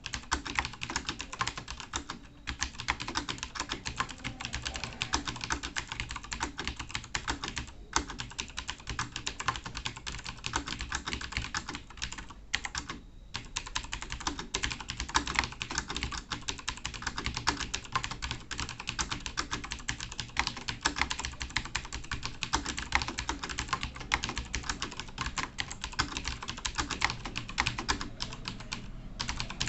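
Rapid, continuous typing on a computer keyboard during a timed typing speed test: a dense stream of keystroke clicks, broken by a few very short pauses.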